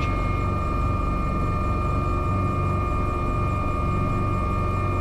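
AW189 helicopter's twin turboshaft engines and rotor drive running steadily on the ground after landing, heard from inside the cockpit. It is a low, even rumble with a steady high whine over it.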